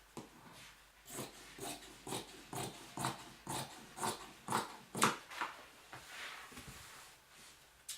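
Fabric being cut with scissors: a series of short crunchy snips, about two a second.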